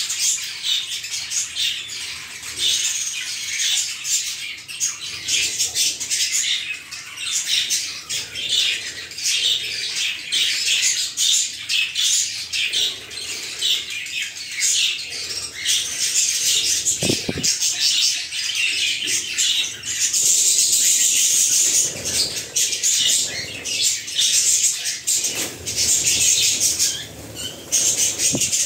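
Lovebirds chattering: a continuous stream of rapid, shrill chirps and squawks.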